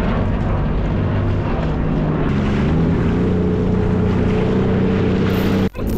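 Sea-Doo Fish Pro jet ski's engine running at speed on the water, its pitch rising a little about two seconds in. It breaks off suddenly for a moment near the end.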